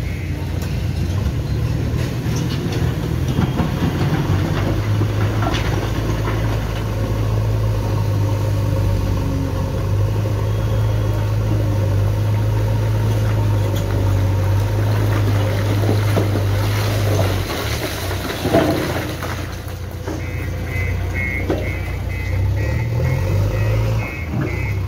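JCB 3DX backhoe loader's diesel engine running under load as the front loader bucket pushes into and scoops stone rubble, holding a steady pitch for long stretches. A loud knock comes about 18 seconds in, and a repeating high beeping is heard near the start and again from about 20 seconds.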